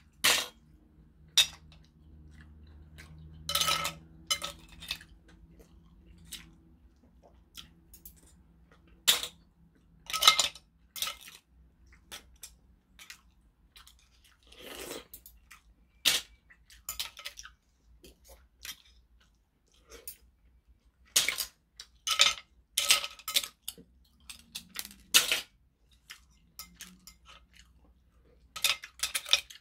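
Close-up eating of steamed shellfish: chewing, with many sharp, irregular clicks of metal chopsticks against shells and the dishes.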